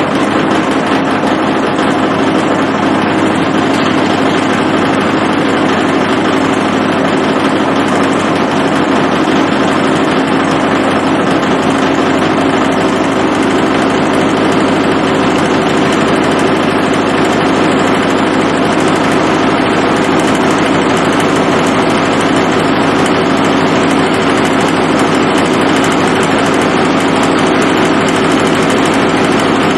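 Shopsmith running as a wood lathe, spinning a rough, out-of-round log blank: a steady, loud motor and spindle hum with a lot of vibration.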